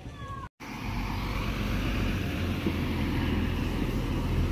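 Diesel engine of a Mercedes-Benz Unimog truck running steadily as it wades through floodwater, a low even rumble with a wash of water noise over it.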